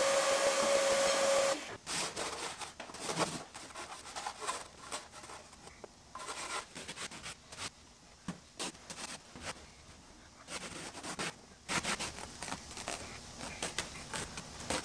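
A shop vacuum runs with a steady whine and cuts off about a second and a half in. Then come irregular scraping, rubbing and tearing as old factory-glued carpet is pulled and scraped off a car's floor and rear bulkhead.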